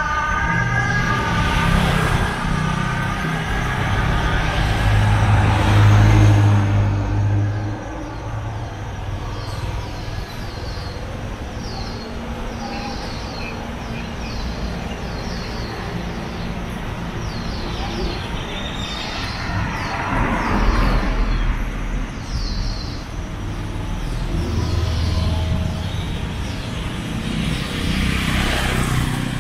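Road traffic: a steady rumble of cars and motorbikes, with several vehicles swelling louder as they pass. Through the middle a high, short falling chirp repeats about once or twice a second.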